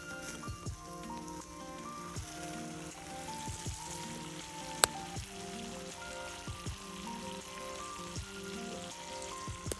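Shellfish sizzling as they cook over a wood fire, with scattered crackles and one sharp snap about five seconds in. Background music plays a melody throughout.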